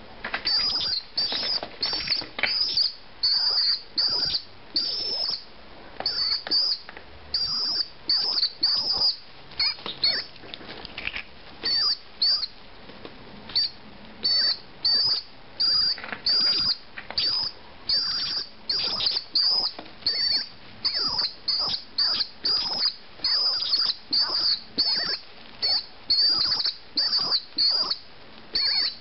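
Young pigeon (squab) peeping repeatedly in short, high, thin squeaks, about two a second without pause. This steady squeaking is the typical begging call of a squab not yet weaned.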